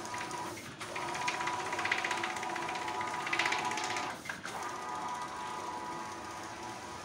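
Wide-format inkjet printer running, its print-head carriage shuttling across the rail with a steady rapid mechanical buzz and whir. The sound drops out briefly twice, about a second in and about four seconds in.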